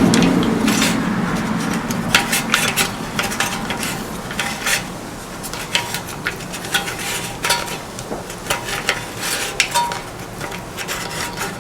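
Recoil starter pulley of a push mower being turned by hand to wind up its spring: rubbing and many irregular clicks and knocks of the starter parts.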